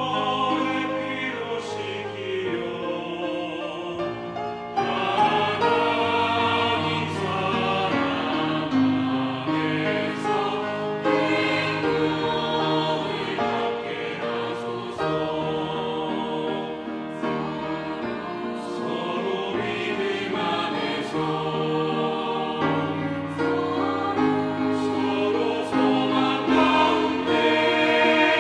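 Church choir singing a Korean hymn in several voice parts, with sustained, moving chords.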